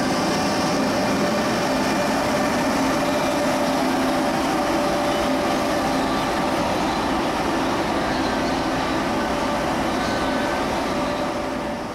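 Frecciarossa ETR 500 high-speed electric train moving slowly along the platform, with a steady hum from its power car's traction equipment and cooling fans over the running noise. The sound eases off a little near the end.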